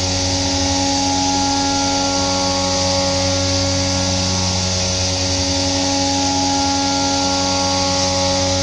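CNC milling machine roughing a metal plate: the end mill cuts steadily under a constant spindle whine, with a hiss from the coolant mist spray.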